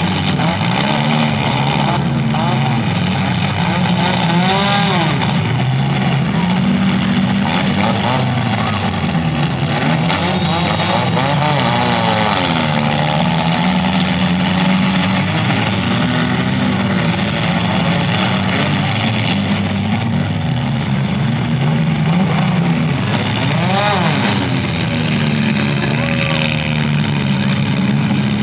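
Engines of several compact demolition-derby cars running and revving up and down together, in a dense, continuous din.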